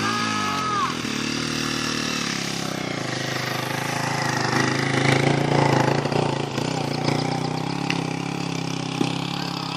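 An engine running, its pitch rising and falling in the first second, then holding a steady hum that grows louder about five seconds in and eases off again. A single sharp knock near the end.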